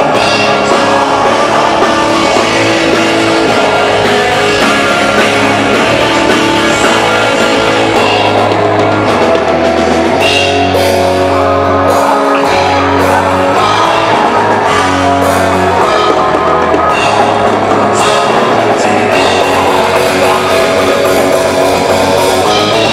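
Live melodic death metal band playing loud and steady: distorted electric guitars, bass guitar and a drum kit through the venue's sound system.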